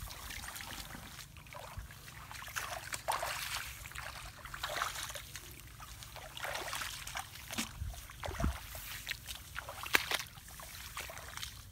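Bare feet wading through shallow muddy water and wet grass, with irregular splashing, sloshing and swishing of stalks. There is one sharp tap about ten seconds in.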